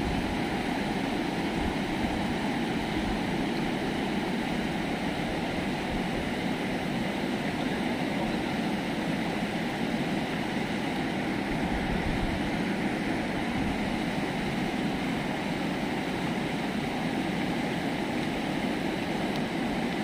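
Fast, turbulent river water rushing steadily.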